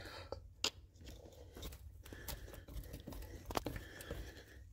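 Faint metal scraping and a few sharp clicks from a screwdriver prying at the joint between the engine and transmission, working them apart off the locating dowel.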